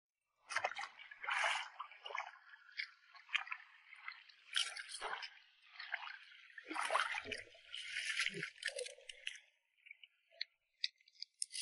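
Rubber boots wading through shallow seawater over rocks: irregular sloshing, squelching steps with a few dull thuds, stopping about nine seconds in.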